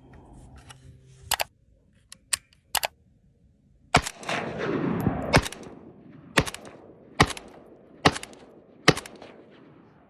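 Rifle fired in separate single shots, about nine in all, spaced roughly a second apart and some louder than others. An echo rolls out after the shots around four to five seconds in.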